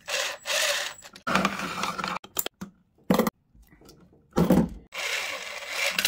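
Irregular bursts of scraping and rustling as electrical wires and metal parts are handled and pushed into place, with a short sharp click about three seconds in.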